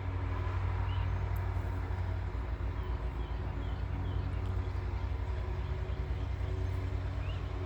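A steady low mechanical hum, like an engine or motor running, with no break or change in pitch.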